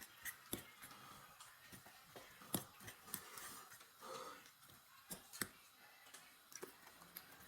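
Quiet eating sounds of spaghetti being eaten: scattered soft clicks and smacks at irregular intervals.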